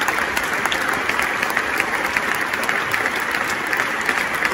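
Large arena crowd applauding steadily: a dense patter of many hands clapping.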